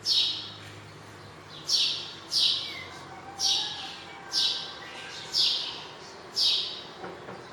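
A bird repeating a harsh, rasping call about once a second, each call starting sharply and fading quickly, with fainter bird sounds in the background.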